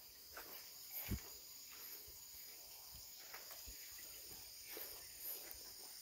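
Footsteps on a stone-paved path, irregular and faint, the firmest one about a second in, over a steady high-pitched insect chorus.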